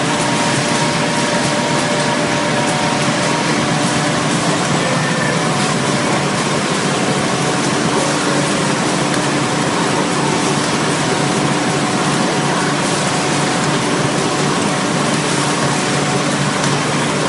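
Fully automatic soft-pack facial tissue packaging machine running: a steady, even mechanical noise with a few faint steady hums in it.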